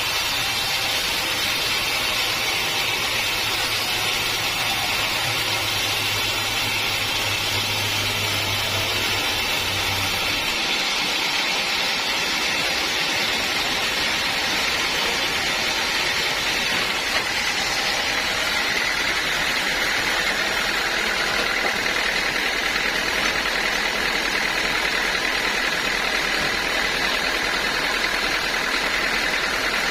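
Sawmill saw and its motor running steadily, with a continuous high whine and hiss; a low hum drops out about ten seconds in.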